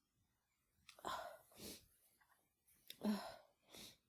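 A woman with a head cold breathing and sighing faintly in a few short, breathy puffs, one about three seconds in carrying a little voice.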